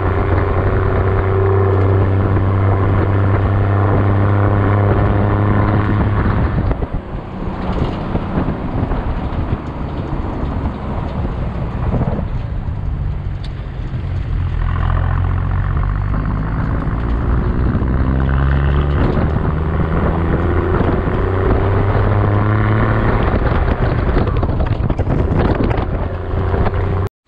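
Toyota Landcruiser 79 Series ute driving along a road, heard from inside the cab: steady engine drone over tyre and road noise. The engine note drops away about twelve seconds in and rises again as the ute speeds back up.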